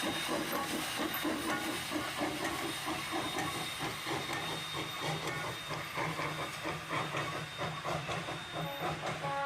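The steam locomotive Jeddo Coal No. 85, a small 1928 Vulcan Iron Works 0-4-0 tank engine, running by with a steady hiss of steam and a quick, irregular clatter of exhaust and wheels on the rails.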